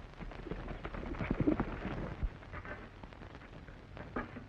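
A campfire being doused: hissing and crackling with scattered irregular clicks and knocks, loudest about one to two seconds in.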